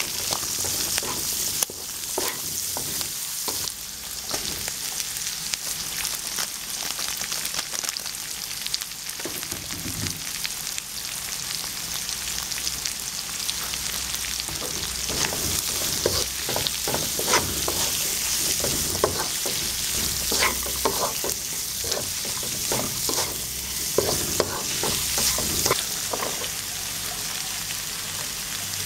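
Vegetables and chicken liver sizzling in oil in a wok while a wooden spatula stirs them. Frequent short scrapes and knocks of the spatula against the pan are busiest in the second half.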